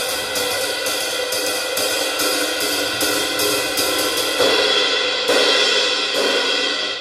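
Drum-kit cymbals struck over and over in a dense, ringing wash. The playing cuts off abruptly at the end, and one last cymbal hit rings out and fades.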